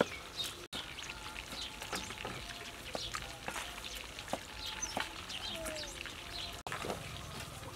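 Cleaver knocking on a wooden chopping board while dicing tomatoes, in short, irregular knocks. Birds chirp faintly in the background.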